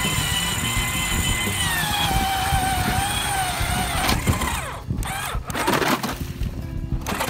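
Power ice auger drilling through lake ice, its motor pitch dropping and wavering under load. About four to six seconds in the pitch swings up and down as the bit breaks through to water.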